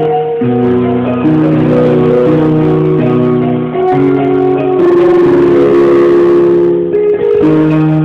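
Electronic keyboard playing held chords that change every second or so, fuller and brighter around the middle.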